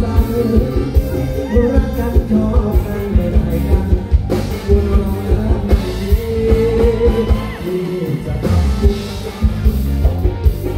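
Live rock band playing through the PA, with a male lead vocalist singing over electric guitars, bass and a heavy, steady drum beat.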